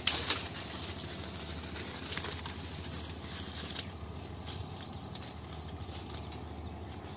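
Footsteps on dry leaf litter and leafy branches brushing past, a steady rustle and crunch of movement through undergrowth, with two sharp cracks right at the start.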